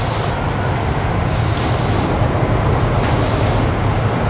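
A Keihin-Tohoku Line electric train stands at the platform, humming and hissing steadily, while its doors slide shut ahead of departure.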